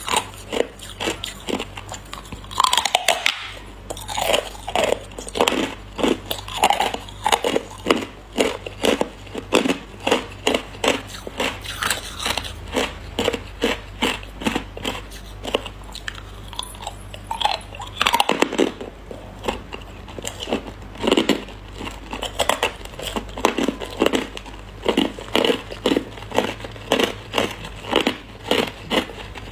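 Hard ice being bitten and chewed: a steady run of sharp crunches about two a second as chunks of frosted white ice are crushed between the teeth, with bigger bites about three seconds in and again near eighteen seconds.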